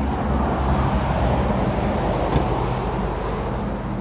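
Steady engine and road rumble inside the cabin of a 2012 VW Golf GTI, carrying the vibrating noise the owner is tracing to one side of the car.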